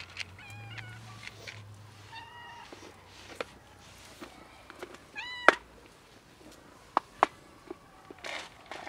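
Street cats meowing, three high calls spread over several seconds, with a few sharp clicks in between, the loudest right after the third meow.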